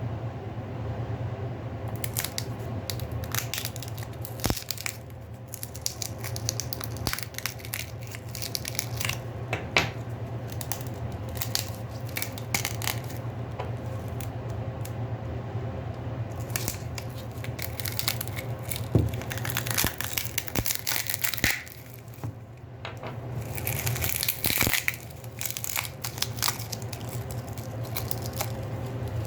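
Hands taking apart a Samsung Galaxy A50 smartphone with small opening tools: irregular clicks, scraping and crinkling of parts, over a steady low hum.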